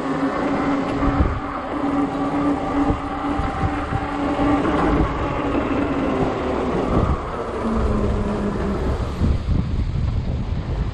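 Riding noise from a fat-tire e-bike: wind buffeting the microphone and tyre rumble, with a steady hum that drops in pitch about eight seconds in.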